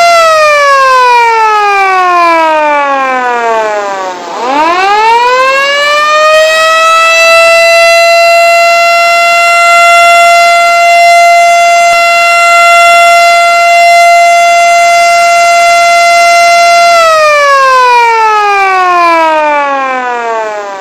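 Ramadan buka puasa siren sounding one steady pitched tone that slides down to a low pitch about four seconds in, sweeps quickly back up and holds, then falls away again near the end. It signals the time to break the fast.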